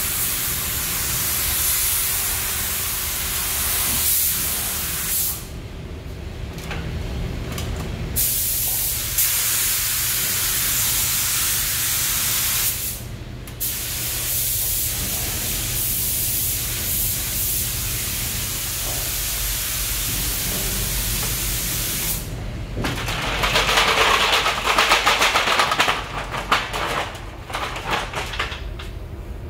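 Compressed-air paint spray gun hissing as it sprays paint, cutting out briefly a few times as the trigger is released, loudest a little past two-thirds in and coming in short spurts near the end. A steady low hum runs underneath.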